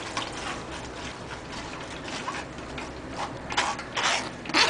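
Water pouring from a plastic jug into a metal sieve full of blended yogurt-and-gram-flour batter, a steady splashing pour. Near the end a wooden spoon starts scraping against the sieve mesh in a few separate strokes, pushing the mixture through.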